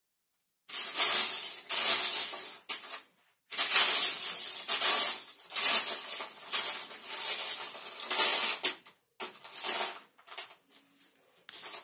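Loose Lego bricks clattering and rattling against each other, as when a hand rummages through a pile of pieces, in several long stretches with short pauses, thinning to a few clicks near the end.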